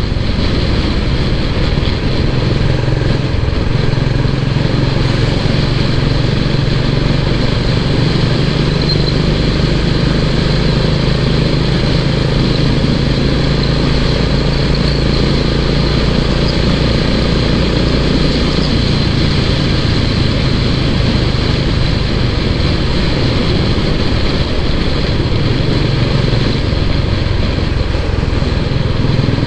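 Royal Enfield Classic 350's single-cylinder engine thumping steadily as the motorcycle is ridden, with a steady rush of wind and road noise over it; the engine note changes about two-thirds of the way through.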